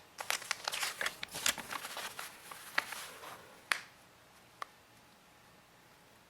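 Hands handling packaging and plastic parts of a Dirt Devil Power Stick vacuum: rustling and a quick run of light clicks for about three seconds, then two sharper single clicks.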